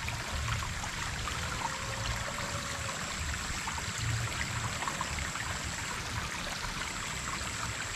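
Steady flow of a shallow stream trickling over stones, with a thin high steady tone above it.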